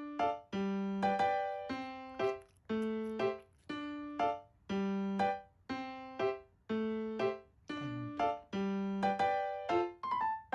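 Background keyboard music: a simple piano-like tune of separate struck notes, about two a second, each fading before the next.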